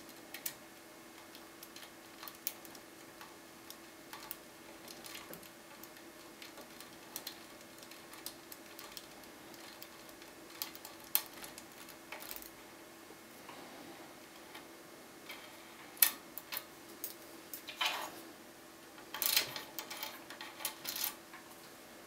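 A homemade bogota rake and tension wrench picking a TESA TE5 euro cylinder: the rake scrapes and clicks against the pins. The clicks are scattered and light at first, then louder and closer together near the end.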